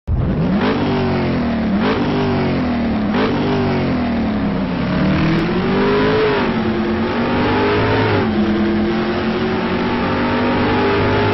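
A vehicle engine accelerating hard through the gears. Its pitch climbs and drops back at three quick shifts in the first three seconds, then makes two longer pulls, with a shift about eight seconds in, and settles into a steady high drone.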